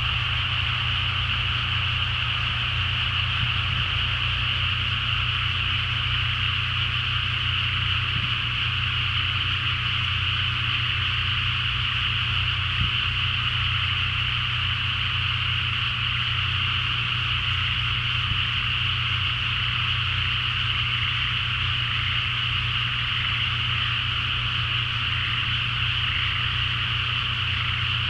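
A dense, continuous chorus of many frogs calling at night, blended into one steady high-pitched din, with a steady low hum beneath it.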